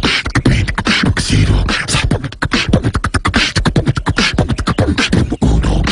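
A person beatboxing: a fast run of percussive mouth sounds, deep thumps mixed with sharp clicks and hisses.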